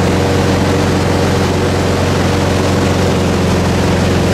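Motorboat engine running steadily at towing speed, heard from on board, with a constant rush of water and wind over it.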